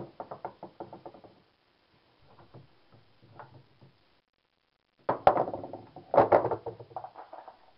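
A coarse-thread barn auger in a hand brace boring into pine, in bursts of rapid creaking and crackling as it cuts and tears thick chips. There is one sharp knock about five seconds in.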